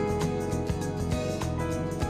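Background music with a steady beat under the weather maps, with no narration.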